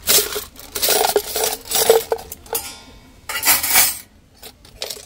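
Stainless steel spoons and forks clattering and jangling as they are tipped from a cutlery holder into an Innerspace stainless steel cutlery tray. The clatter comes in about four bursts, then a few small clinks near the end.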